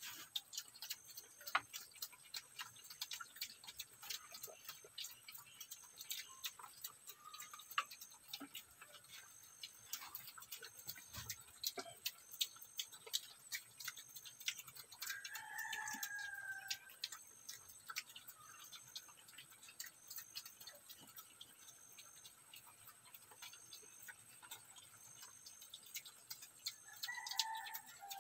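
Piglets eating dry feed off a concrete floor: a faint, irregular run of small crunching clicks from their chewing and snouts. A short pitched call sounds in the background about fifteen seconds in and again near the end.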